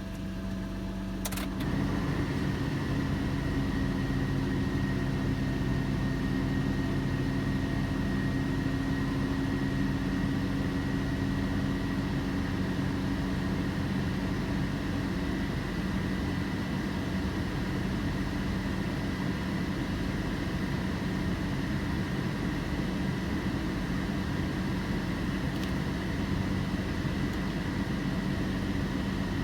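2007 Toyota Tacoma engine running at a steady speed, a low hum with a thin, steady high-pitched whine over it. The whine comes from a failing alternator, which is not holding the charging voltage. A short click comes about a second in.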